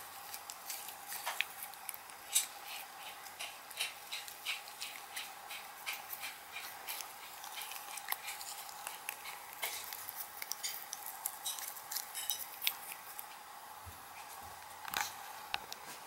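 A puppy's teeth clicking and scraping on a small plastic toothbrush as it is brushed and chews at the brush: irregular sharp little clicks, several a second, over a faint steady hum.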